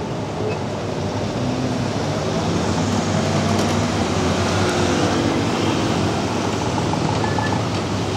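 A passing vehicle's rumble swells to a peak about halfway and then eases off, with faint whining tones in it.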